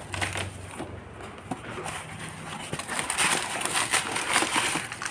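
A cardboard box is handled and opened with a few light clicks and taps. About three seconds in, crumpled kraft packing paper inside it starts rustling and crinkling.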